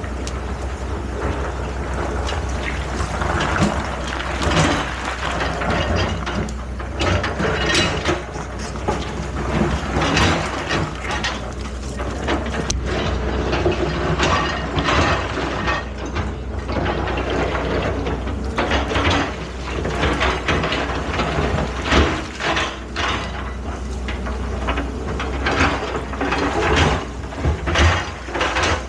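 Excavator engine running steadily, with frequent irregular clanks and knocks of metal at work.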